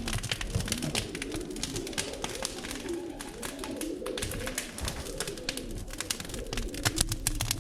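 Pigeons cooing in low, repeated rising-and-falling phrases, over a steady scatter of sharp crackling clicks.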